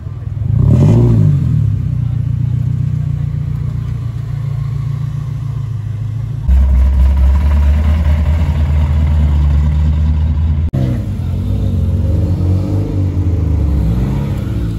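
Several cars driving slowly past, one after another, their engines and exhausts running. About a second in one engine gives a quick rev. In the middle a louder, deeper exhaust rumble takes over, and near the end lighter engines rise and fall in pitch as they pull away.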